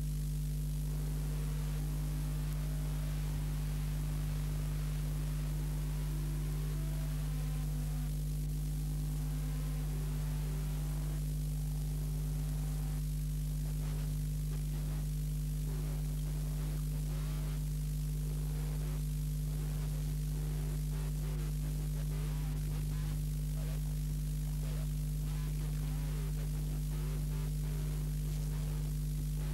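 Steady electrical mains hum with its buzzy overtones, as on an old tape transfer. Faint music can be heard in the first several seconds.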